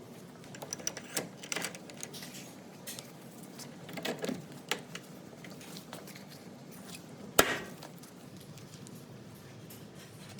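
Small metal parts and hand tools being handled on a workbench during disassembly of an air angle grinder: scattered clicks and light knocks, with one sharp knock about seven seconds in.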